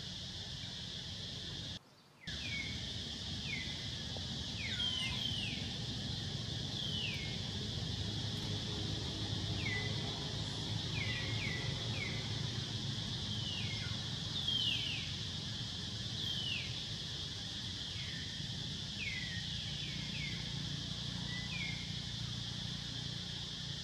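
Steady drone of insects, with a bird calling short chirps that fall in pitch, repeated irregularly about once a second or faster, over a low rumble. The sound cuts out for a moment about two seconds in.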